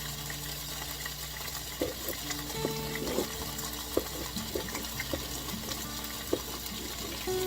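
Soft background music of held notes that change every second or so, over an even hiss, with a few light clicks.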